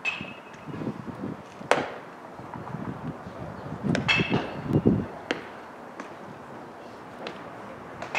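One sharp crack of a baseball striking about two seconds in, with voices calling out around the field and a few lighter knocks and clicks.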